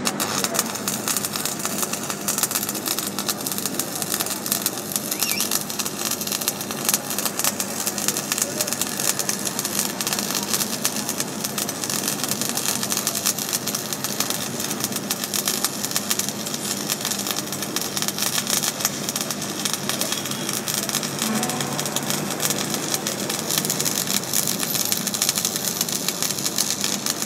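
Stick-welding arc crackling steadily as a rod electrode burns along a steel plate.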